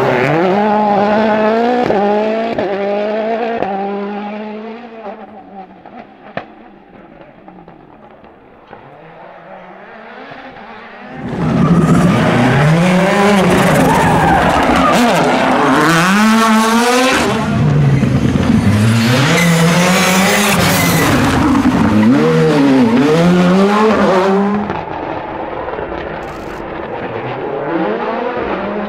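Two World Rally Cars on a tarmac stage, each running a turbocharged four-cylinder engine. First a Citroën C3 WRC accelerates away, its engine note climbing and dropping through quick gear changes before fading. After a quieter lull, a Ford Fiesta WRC comes in loud about eleven seconds in, revving hard up and down through shifts and braking for corners, then fades as it drives off.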